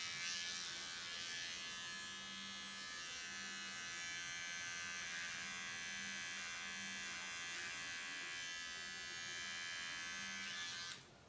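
Electric hair clippers buzzing steadily as they cut the short hair at the nape of the neck. The buzz stops suddenly near the end.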